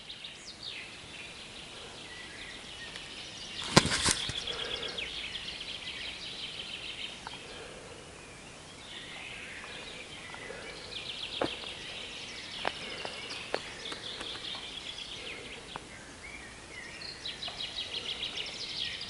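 Woodland birdsong in still air: several small birds singing in trills and warbles, with one sharp loud knock about four seconds in and a few faint clicks later.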